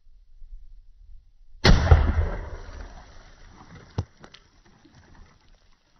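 Single rifle shot from a Marlin 1895 lever-action in .45-70 about a second and a half in, the report dying away over the next two seconds. A single sharp click follows about two seconds after the shot.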